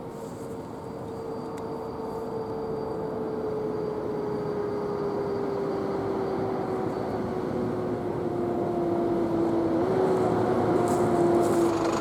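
A train approaching, growing steadily louder, with a steady whine that slowly falls in pitch.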